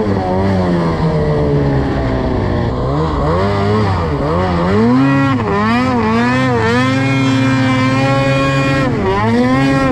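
Snowmobile engine running under way, its pitch rising and falling repeatedly as the throttle is opened and eased off, with a steadier stretch late on before a quick dip and climb.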